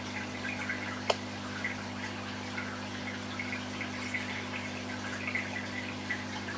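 Aquarium filter running: a steady low hum with water trickling and dripping, and one sharp click about a second in.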